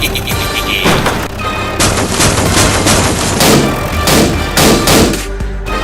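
Background music with a rapid series of loud bangs and clatter layered over it, thickest about three and a half to five seconds in.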